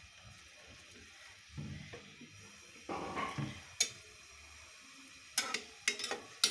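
Sliced onions sizzling in hot oil in an aluminium pot while a spatula stirs them, with several sharp knocks of the spatula against the pot in the second half.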